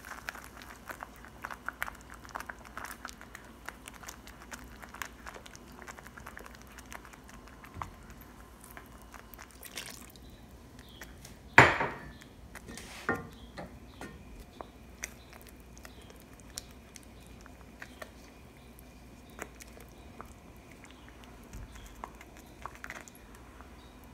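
Cooking utensil clinking and tapping against a pan: scattered light clinks, with one loud clank about twelve seconds in and a couple of sharper knocks just after.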